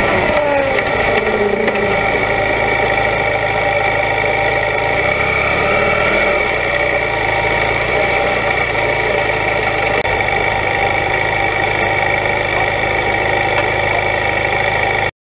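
BMW GS adventure motorcycle's twin-cylinder engine running under way: its pitch falls in the first second as the revs drop, then holds steady. The sound cuts off suddenly near the end.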